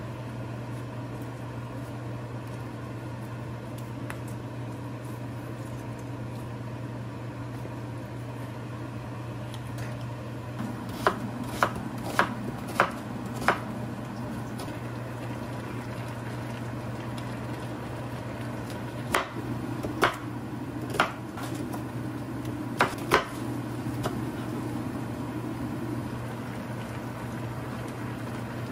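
Kitchen knife slicing an onion on a cutting board. A quick run of about five cuts comes about eleven seconds in, and another handful around twenty seconds in, over a steady low hum.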